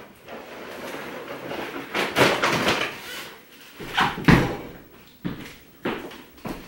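Grocery bags rustling and being set down on a kitchen counter, with scattered knocks and one dull thump about four seconds in.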